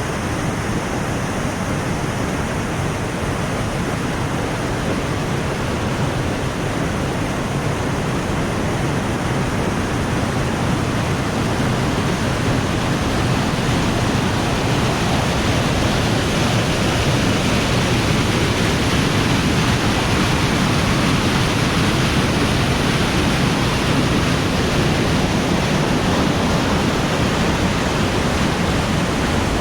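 Waterfall pouring: a loud, steady rush of falling water that swells a little about halfway through.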